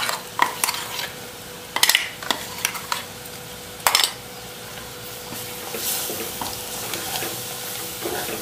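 Steel spoon scraping and knocking ground coconut masala out of a steel mixer jar, with several sharp metallic clinks in the first four seconds, over masala sizzling in oil in a clay pot. From about halfway, a wooden spatula stirs the paste into the frying masala.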